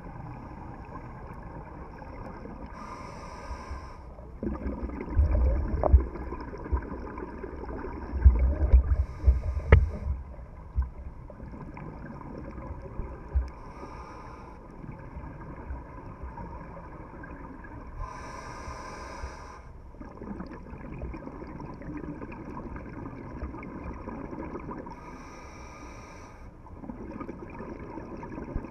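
Scuba diver breathing through a regulator underwater: a short hiss with each inhale every few seconds, followed by low gurgling rumbles of exhaled bubbles, over a steady underwater drone.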